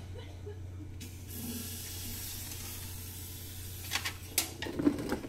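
Aerosol can of cavity wax spraying through a long extension hose with a multi-direction nozzle. A steady hiss starts about a second in and stops near four seconds, followed by a few sharp clicks and knocks as the can and hose are handled.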